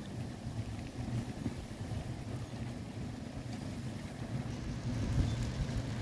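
Storm wind gusting against the microphone in an uneven low rumble, over the hiss of heavy rain; the hiss grows a little louder in the last second or so.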